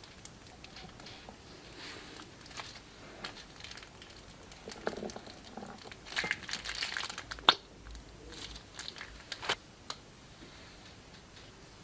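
Slime being squeezed from a plastic piping bag and handled: the plastic crinkles, with crackling and sharp clicks and pops. The sounds are busiest in the middle, with the loudest click a little past halfway.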